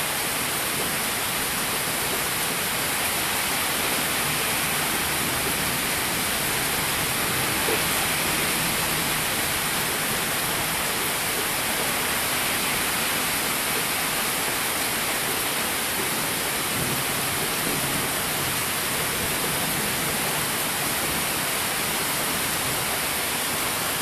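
Heavy rain falling steadily, an even dense hiss with no breaks.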